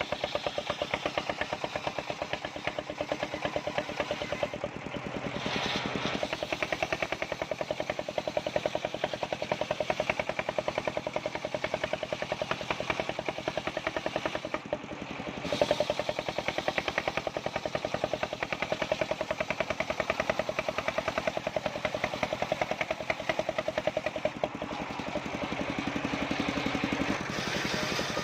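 Engine-driven mobile circular sawmill running steadily, a rapid even pulsing with a steady tone over it; the sound briefly changes about five seconds in and again about fifteen seconds in.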